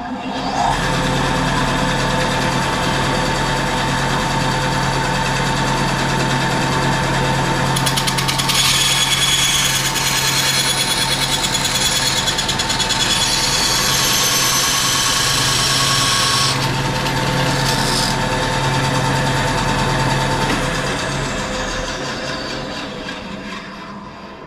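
Benchtop bandsaw switched on and running with a steady hum, its blade cutting through an aluminium stiffener for several seconds about a third of the way in. It is switched off near the end and winds down.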